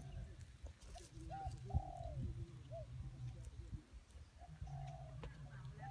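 Doves cooing: a string of short, soft coos, each rising and then falling in pitch, with pauses between them.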